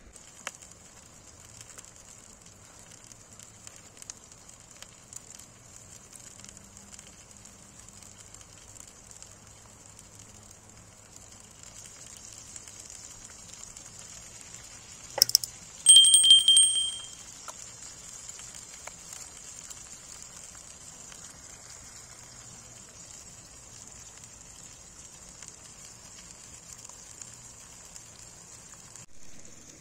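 Butter and food sizzling steadily in a pan over a crackling wood fire. About fifteen seconds in come a couple of sharp knocks, then a brief loud ringing tone.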